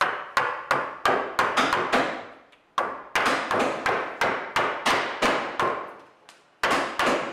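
Wooden mallet striking the handle of a wood-carving chisel as it cuts into a branch: quick, even knocks, about four a second, in three runs with two short pauses.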